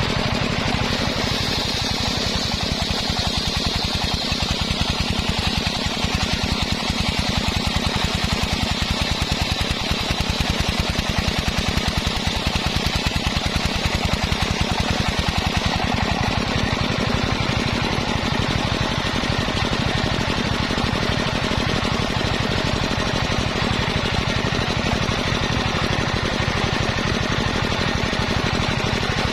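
Engine-driven homemade circular saw running steadily with rapid, even engine pulses. A higher whine from the blade sawing waru wood is strongest in the first half.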